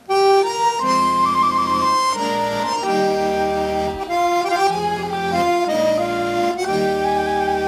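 Instrumental passage of a Christmas song: flute and violin playing the melody over sustained chords, without voices.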